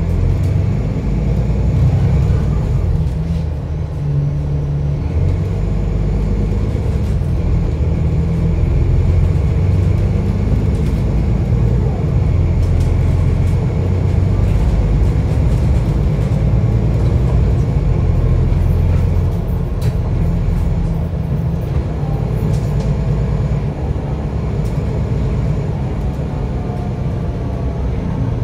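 A bus in motion, heard from on board: a steady low engine drone and road rumble.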